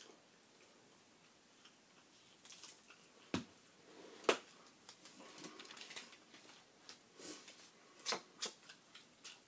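Chewing and lip smacking while eating a piece of bread, heard as a scatter of short, wet mouth clicks. Two sharper smacks stand out about three and a half and four and a half seconds in.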